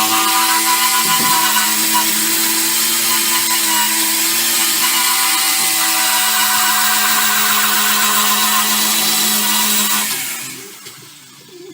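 Angle grinder with a wire wheel running steadily on the Mini's steel bodywork, stripping paint and rust back to bare metal: a steady high whine over a dense scraping hiss. It is switched off near the end and winds down.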